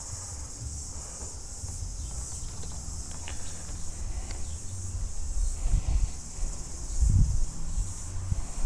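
Steady high-pitched insect chorus with a slow pulsing, over a low rumble. A few low thumps about six and seven seconds in, from movement on the wooden deck.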